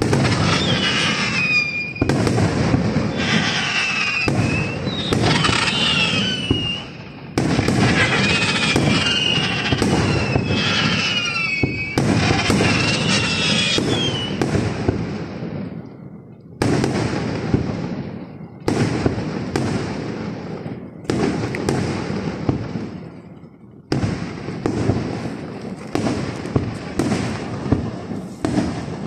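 Aerial fireworks shells bursting in rapid succession: a dense run of sharp bangs and crackling, with high wavering whistling tones over the first half and fresh volleys starting abruptly every few seconds.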